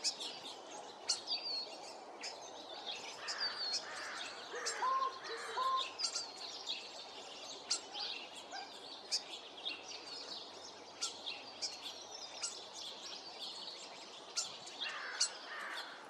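Small birds chirping and twittering throughout, in sharp high notes. About five seconds in come two short, lower hooting notes, taken for the American crow's 'coo-honk' call, and a raspier call follows near the end.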